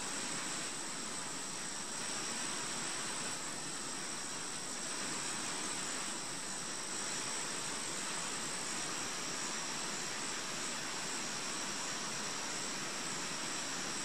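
Steady outdoor background hiss with two faint, steady high-pitched tones running through it; no heron call is heard.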